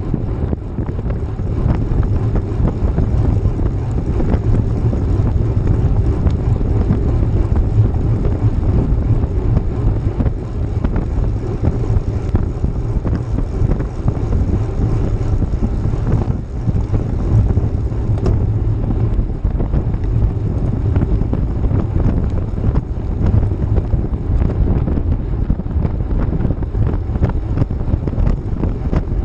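Wind buffeting the microphone of a GoPro riding on a moving road bicycle: a loud, steady, low rumble.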